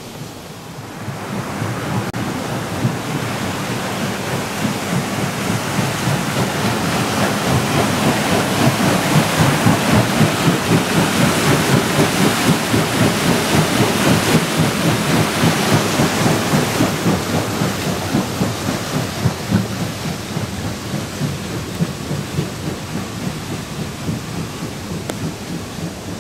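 Water rushing and churning down a concrete irrigation channel, under steel grating covers. It swells about a second and a half in, is loudest in the middle, and eases off toward the end.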